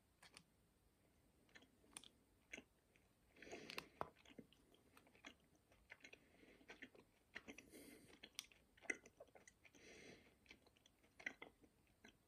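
A person chewing a jelly bean with the mouth closed: faint, scattered wet clicks and smacks.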